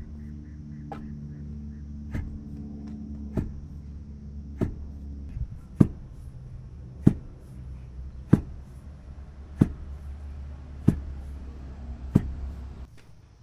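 Long wooden pestle pounding rice in a carved wooden mortar (okhli), a dull thud about every second and a quarter, about ten strokes in all, over a steady low drone that stops near the end.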